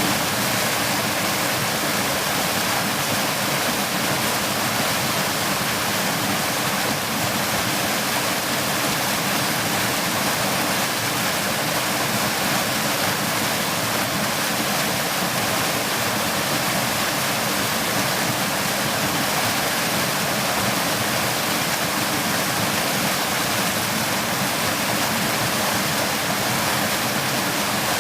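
Stream water rushing steadily over rocks, a full, even splashing hiss with no pauses.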